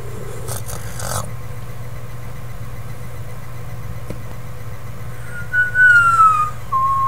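Two drawn-out meows, each sliding down in pitch, the second lower than the first, starting about five seconds in. Under them runs a steady low electrical hum, with a brief rustle near the start.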